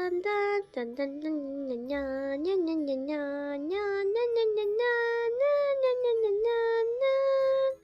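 A child singing a tune in a high voice, with long held notes and small slides between them, stopping abruptly near the end.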